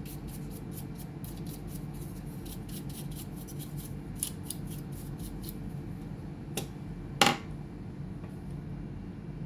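Quick, light brushing or scraping strokes on laptop internal parts, about three or four a second, during fan and heatsink cleaning work. Near the end the strokes stop, and two sharp clicks follow, the second louder.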